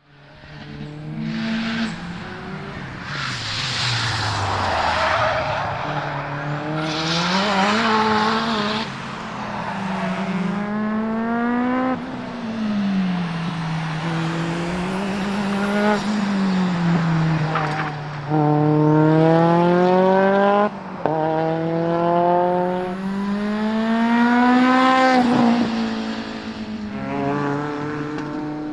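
Turbocharged rally car engine being driven hard on a circuit, its pitch climbing through each gear and dropping sharply at every upshift, several times over.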